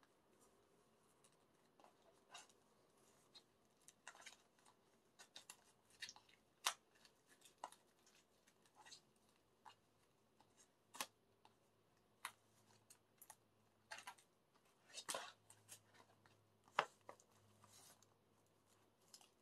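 A CD album being unwrapped by hand: scattered sharp crackles, snaps and clicks of plastic wrapping and card packaging being handled, thickening after the first few seconds.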